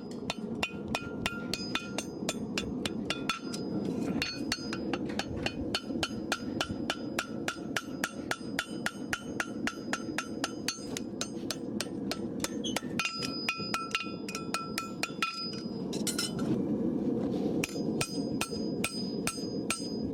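Hand hammer striking hot steel on an anvil in quick, even blows, about four a second, each with a bright ring, while a horseshoe is forged. The blows falter briefly about sixteen seconds in, over a steady background rush.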